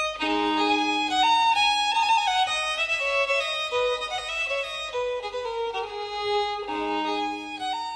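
Instrumental music: a violin-like bowed melody moving in steps over held low notes, which drop out in the middle and come back near the end.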